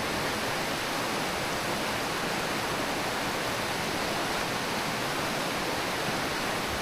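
Mountain stream water rushing over rocks in a gorge, a steady, unbroken rush.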